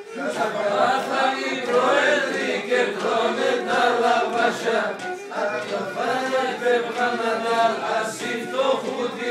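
Several voices singing a song together, continuously.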